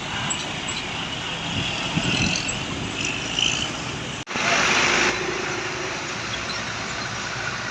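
Roadside traffic noise from large buses passing. A little past halfway the sound drops out for an instant, then a loud hiss lasts under a second.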